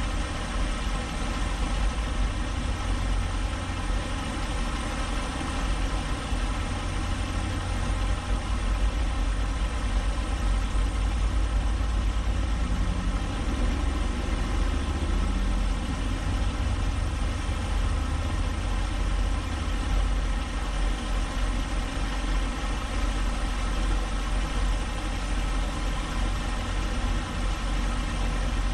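Semi truck's diesel engine idling steadily, a deep even sound heard from inside the cab.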